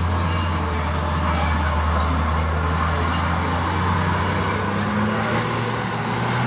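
Lime spreader truck's engine running steadily as it drives across the paddock spreading lime, a continuous low drone whose pitch shifts slightly near the end.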